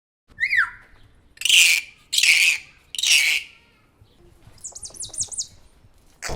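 Bird calls: a short falling chirp, then three loud, harsh squawks about a second apart, then a quick run of high, falling chirps near the end.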